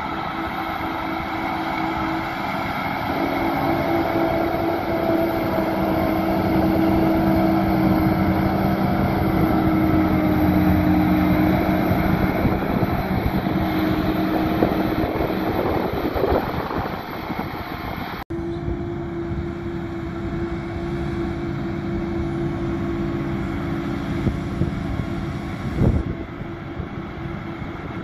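Krone Big X 630 self-propelled forage harvester chopping grass under load, its engine and chopper running with a steady hum and a few held tones, together with the Fendt Vario tractor pulling the trailer beside it. The sound swells toward the middle as the machines come closer, then breaks off for an instant about two-thirds of the way through and carries on with a slightly different tone.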